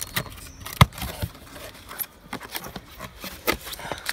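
Irregular knocks and clunks as a new 12 V AGM car battery and its packaging are handled, the loudest a single sharp knock about a second in.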